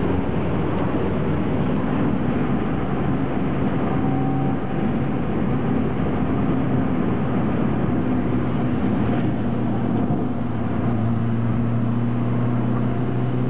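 Car engine running at speed with road and tyre noise, heard from inside the cabin; the engine note holds steady and shifts in pitch slightly about ten seconds in.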